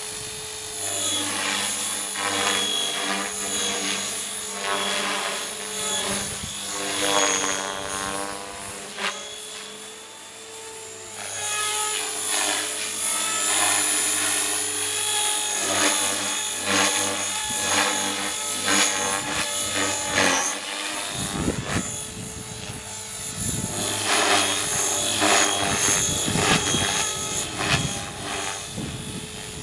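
Radio-controlled model helicopter in flight: a steady rotor buzz and high motor whine that shift up and down in pitch as it manoeuvres and passes.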